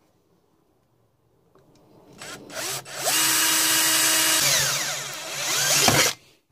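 Power drill boring a hole through a plastic jar lid with a twist bit. A couple of short bursts come about two seconds in. Then the motor spins up and runs steadily for about three seconds, its whine falling in pitch before it stops suddenly near the end.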